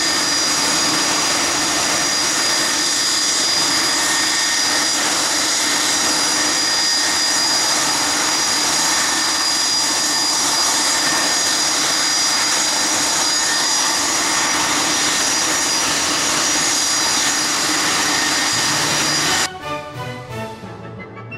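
Steady jet turbine noise from an aircraft on the ground, a constant rush with high-pitched whines held on steady notes. It cuts off suddenly near the end and orchestral music takes over.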